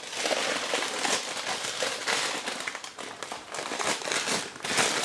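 Browned, flour-dredged beef cubes being added to a hot pot of onions, tomato paste and diced tomatoes, sizzling and crackling as they go in, with a brief lull near the end.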